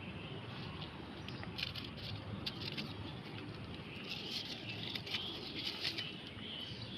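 Scattered rustling and crackling as plastic litter is picked up from roadside plants, in two clusters about a second and a half in and again about four seconds in, over a steady outdoor background hiss.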